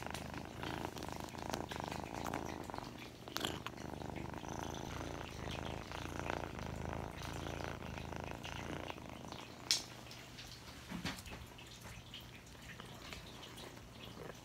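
Kitten purring steadily, a low, rapid rumble that fades out about nine seconds in. Two sharp clicks: a faint one about three seconds in and a louder one near ten seconds.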